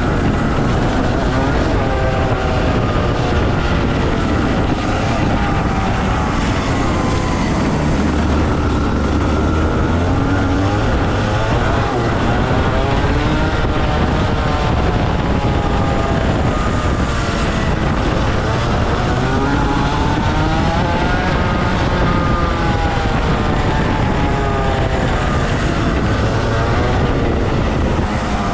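Rotax Max Senior 125cc single-cylinder two-stroke kart engine at race speed, the revs repeatedly climbing on the straights and dropping into the corners.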